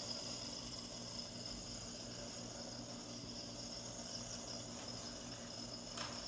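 Nebulizer running: a steady low buzzing hum under a continuous high hiss as it turns liquid into mist for the face mask.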